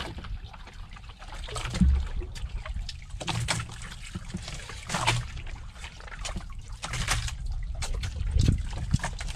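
Water lapping and trickling against the hull of a boat, in irregular small splashes about once a second over a steady low rumble.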